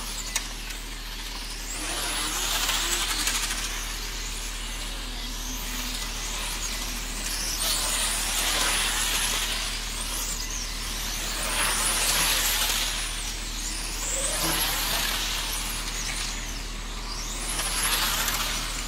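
1/10-scale electric RC pan cars (PRO10 class) racing on an asphalt track: a high-pitched motor and drivetrain whine with tyre hiss that swells and fades about five times as the cars pass.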